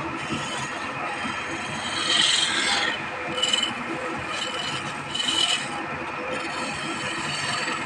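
Wood lathe running while a hand-held turning tool scrapes against the spinning wooden spindle. There is a steady rasp, with three louder scraping surges at about two, three and a half, and five seconds in, each carrying a thin squeal.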